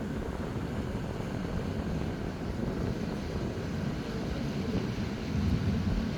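Passenger ferry's engine running, a steady low drone.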